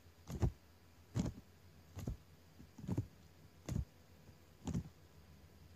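Computer mouse clicking at a steady pace, six sharp clicks about 0.8 seconds apart, each with a low knock under it.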